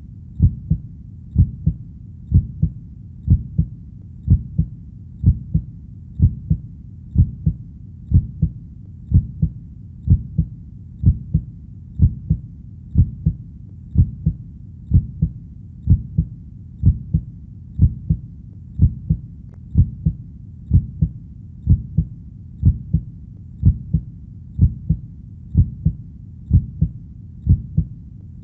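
Steady heartbeat, a double lub-dub thump about once a second, low in pitch, with a faint steady background between beats.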